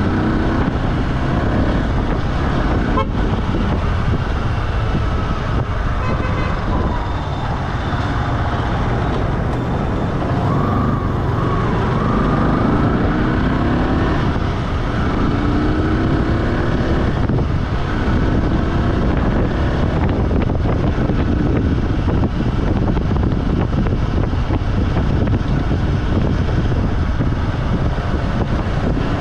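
Vehicle driving along a road: steady engine and road rumble, with passing traffic and a horn tooting around the middle.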